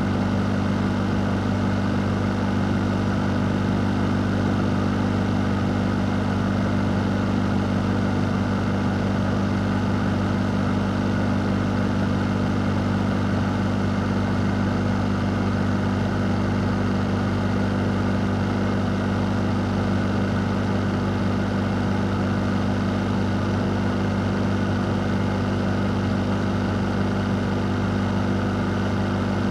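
A fan running steadily: a constant low hum with an even rush of air over it.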